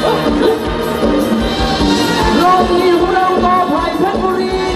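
Live Thai ramwong dance band playing, with a singer over a steady drum beat.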